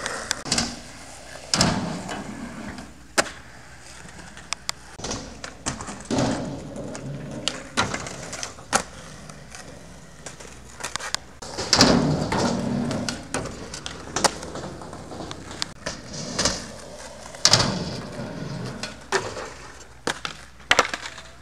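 Skateboard wheels rolling over rough asphalt, broken again and again by sharp pops and clacks of the wooden deck as tricks are popped and landed.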